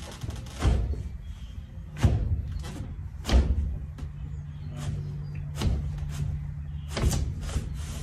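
Newly installed window sash being slid open and shut in its frame, knocking sharply several times as it meets its stops.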